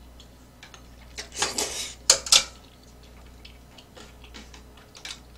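A mouthful of ramen noodles slurped, then metal utensils striking a steel pan twice in quick succession, sharp and loud, about two seconds in, followed by a few lighter taps.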